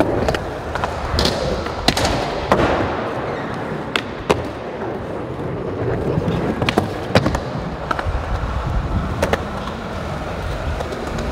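Skateboard wheels rolling on a smooth concrete floor, a steady rumble, broken by about eight sharp clacks of the board striking the ground.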